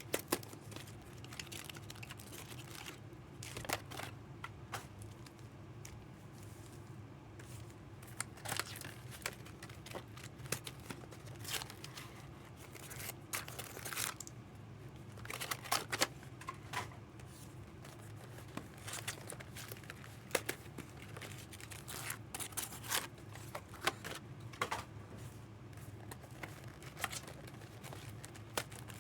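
Scattered crinkles, rustles and clicks of packaging being handled, over a steady low hum.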